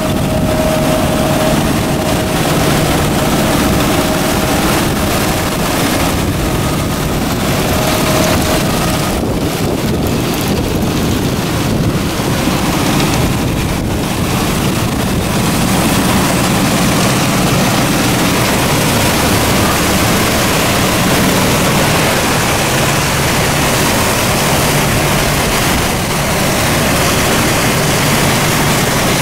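Electric-powered CEC 6x16 sand wash plant running: water spraying and sluicing over the screen decks and wet sand churning in the twin screws, over a steady machinery rumble. It is loud and unbroken, with a faint whine in the first few seconds.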